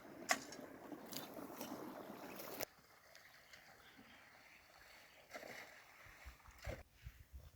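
Moving water with a few sharp splashes, cutting off abruptly a little over two seconds in; after that only faint background sound with a few low bumps.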